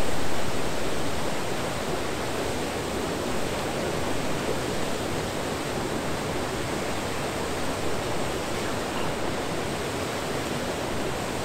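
River water rushing steadily through a weir, a constant even rush.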